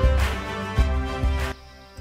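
Background music with sustained tones over a steady low beat, cutting off abruptly about one and a half seconds in.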